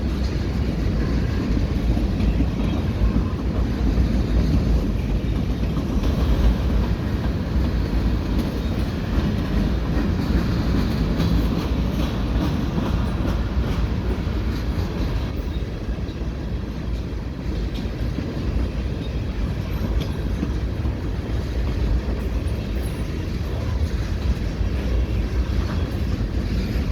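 Freight cars of a CN freight train rolling past at restricted speed: a steady rumble of steel wheels on the rails, with light clacks from the wheels.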